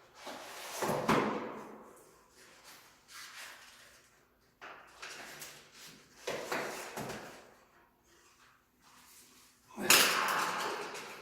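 Tire levers working a bicycle tire's bead off the rim: a series of sudden scraping clunks, each fading over about a second, the loudest near the end.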